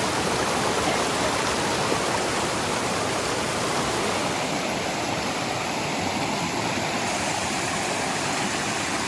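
Swollen mountain river in flood, rushing water running steadily.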